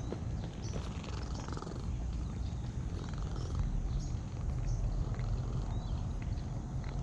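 A domestic cat purring steadily while it is petted.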